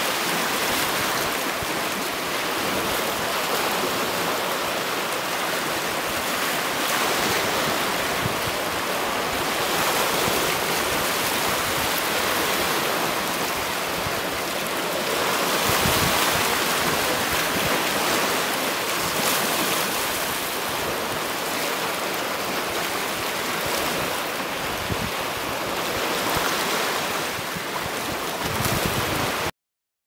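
Small sea waves washing and lapping among shoreline rocks: a steady rush of water that swells a little now and then and stops abruptly near the end.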